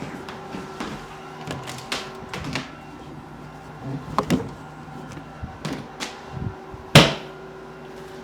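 Scattered knocks and shuffling on a chiropractic treatment table as a person lies back on it, with one sharp, loud clack about seven seconds in.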